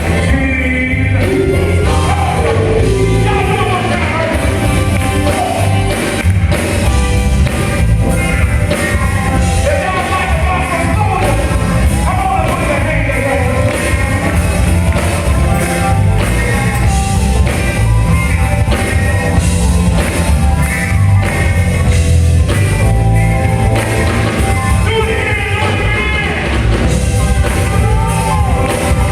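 Loud music with a singing voice over heavy bass and drums, with occasional shouts.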